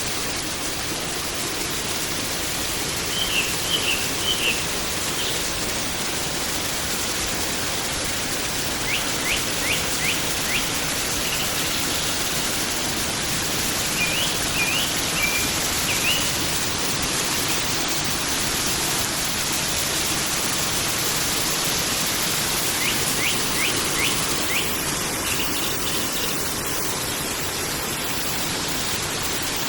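Forest stream flowing steadily, with a small bird calling in short runs of quick, high chirps about four times.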